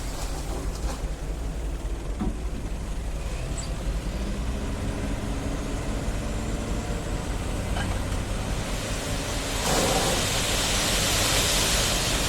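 Diesel engine of a hydraulic excavator running steadily while working. About ten seconds in a louder hissing noise comes in over the engine and holds.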